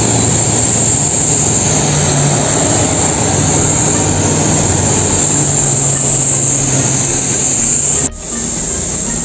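Steady engine and road rumble with a constant hiss from an airport apron bus while it drives. The sound drops abruptly about eight seconds in and goes on a little quieter.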